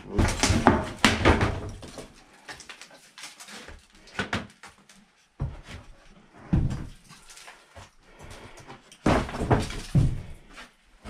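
Wooden knocks, thuds and scrapes as loose boards or panels are moved by hand and stood up, loudest in the first two seconds and again near the end.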